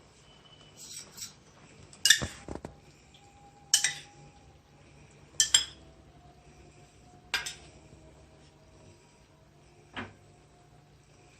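Metal kitchen utensils clinking against steel cookware: about six sharp knocks a second or two apart, the loudest about two seconds in, each leaving a brief ringing tone.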